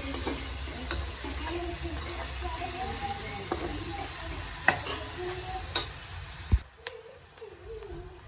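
Food sizzling in a frying pan, with a few sharp clicks as it is stirred; the sizzle drops away about six and a half seconds in.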